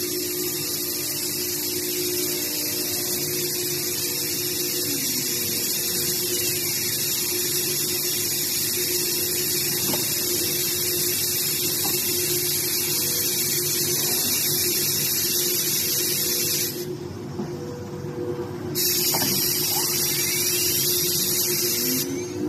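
CNC machine at work: a steady high hiss over a constant hum, with motor whines gliding up and down as the axes speed up and slow down. The hiss cuts out for about two seconds around 17 seconds in, and again near the end.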